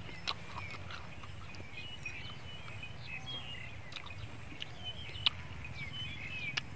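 Small birds chirping over and over, with a low steady hum beneath them. A few sharp clicks come from steamed snail shells being handled and eaten, the loudest about five seconds in.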